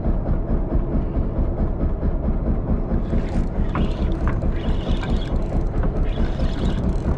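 Steady low rumble aboard a fishing boat at sea, with short higher hissing patches recurring from about three seconds in.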